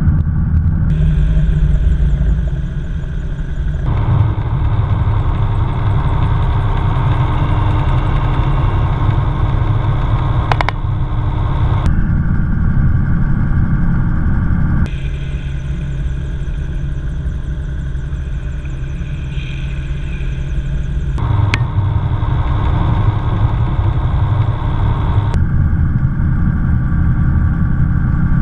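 Gyroplane engine and rotor running steadily in flight, heard inside the enclosed cockpit as a constant drone; the sound changes abruptly a few times.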